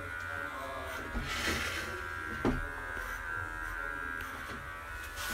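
Cordless electric pet clipper running steadily as it shaves a pug's fur around the head and neck, with a short rustle about one and a half seconds in and a sharp click about halfway through.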